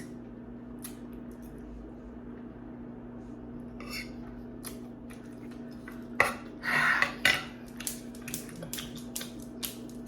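An eating utensil clicking and scraping against a bowl of noodles in short, scattered strokes that begin a few seconds in and come quicker near the end, over a faint steady hum.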